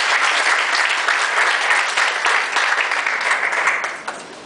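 Congregation applauding, a dense patter of many hands clapping that dies away about four seconds in.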